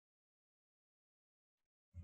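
Near silence, with one brief faint low sound right at the very end.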